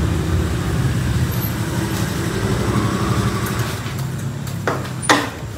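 A motor vehicle engine running steadily with a low hum that slowly fades, with two sharp clicks about five seconds in, the second louder.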